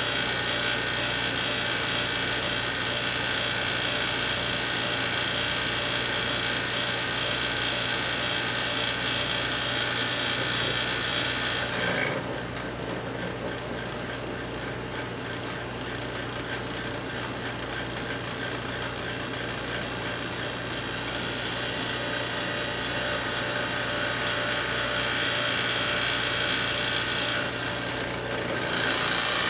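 Steady electrical buzz and hum from a high-voltage plasma rig, with the discharge running through neon in a glass chamber. The upper part of the buzz drops away for several seconds partway through and briefly again near the end.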